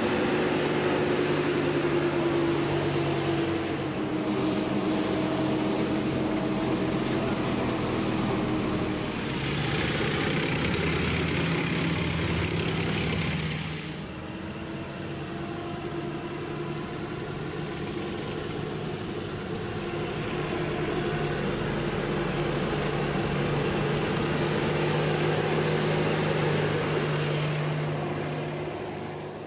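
Engines of WWII military vehicles, a six-wheeled armoured car and jeeps, running steadily as they drive past on a wet road, with tyre noise. The sound changes abruptly about halfway through and fades out near the end.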